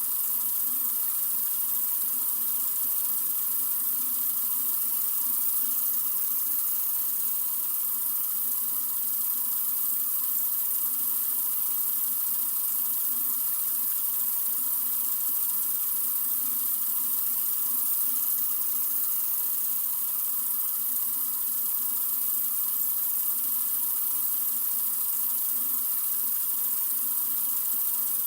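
Water running steadily from a sink faucet: an even, unchanging hiss, strongest in the high end.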